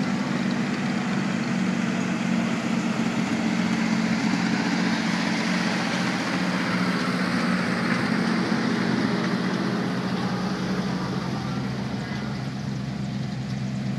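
Vintage Dodge Power Wagon trucks driving slowly past, their engines running with a steady low hum. The engine and road noise swells around the middle and eases off near the end.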